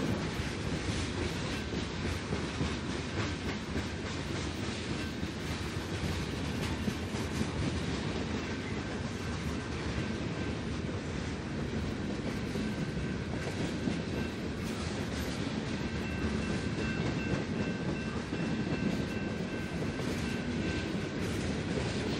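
Freight cars of a Canadian National train rolling past at steady speed: a continuous rumble of wheels on rail with repeated clickety-clack over the rail joints. A faint high whine from the wheels joins in from about the middle onward.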